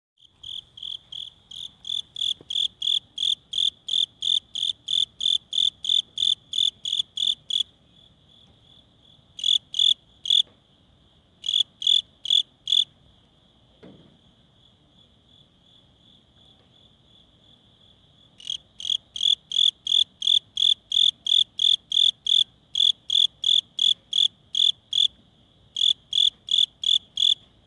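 Cricket chirping as it rubs its wings together: loud, high-pitched pulses at about three a second, in bouts broken by pauses of a second to several seconds. A fainter steady trill at the same pitch carries on through the pauses.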